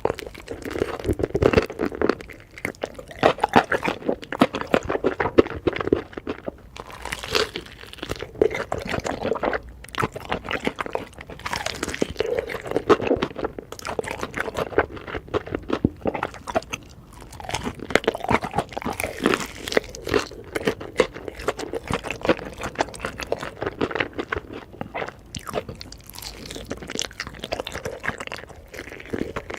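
Close-miked crunching and chewing of crispy fried chicken: the batter crackles in dense, irregular bursts with bites and chewing throughout.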